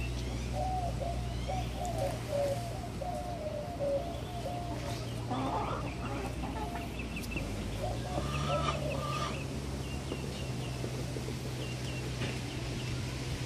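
Domestic hens clucking while they feed: a quick run of low clucks in the first few seconds, then more clucks and short high chirps, over a steady low hum.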